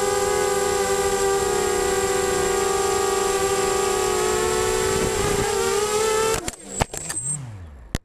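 Mini FPV quadcopter's four Emax MT1806 brushless motors and 5x3 propellers whining at a steady pitch in flight. About six and a half seconds in, a few sharp knocks as the quad crashes into the grass, then the motors wind down to quiet.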